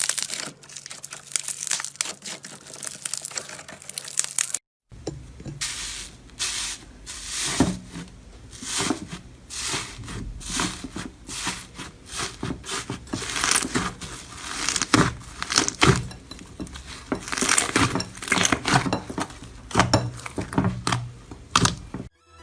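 Slime being squeezed and stretched by hand, giving dense crackling, crinkling and popping. It stops for a moment about five seconds in, then goes on.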